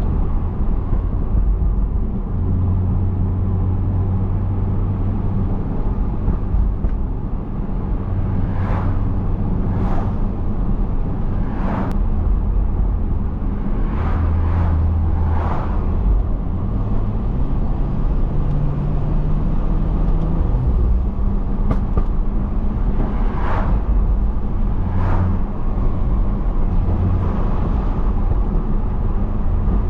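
Stage 2 tuned, catless BMW 335i's turbocharged inline-six, heard from inside the cabin while driving: a steady low drone that shifts in pitch a few times. Several brief sharp sounds come over it in the middle and again later on.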